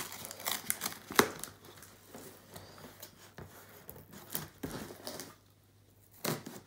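Cardboard mailing box being pried open by hand, with irregular rustling and crackling of the cardboard and its cut packing tape. There is a sharp crack about a second in, and a short pause near the end before a couple of light knocks.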